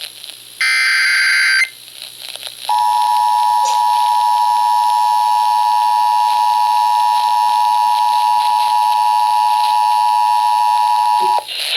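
Emergency Alert System broadcast: the last burst of the SAME digital header, about a second of rapid two-pitch data tones, then, after a short gap, the EAS two-tone attention signal (853 and 960 Hz). The attention signal is a steady, piercing dual tone held for about nine seconds that cuts off just before the end, heralding a flash flood warning.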